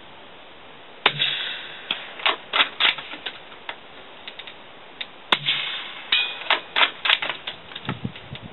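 Two suppressed shots from a .308 FN Patrol Bolt Rifle fitted with an SAS stainless steel can, about four seconds apart, each a sharp crack with a short fading tail. Each shot is followed by a quick run of sharp metallic clicks as the bolt is worked.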